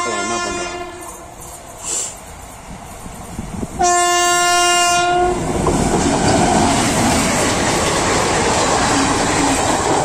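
Indian Railways electric locomotive sounding its horn: a short tail fades at the start, then one blast of about a second and a half comes about four seconds in. The loud rumble and rail clatter of the train passing follows from about five and a half seconds on.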